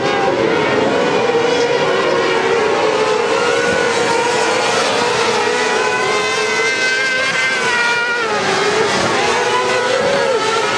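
Kart cross buggies racing on a dirt track, their engines running at high revs. The pitch wavers and climbs and falls as the karts accelerate, lift off and pass.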